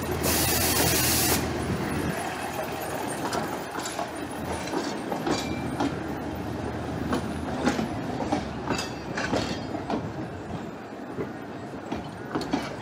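Narrow-gauge diesel locomotive running into the station: a burst of hiss in the first second or so, then a steady rumble with many sharp clicks of the wheels over the rail joints.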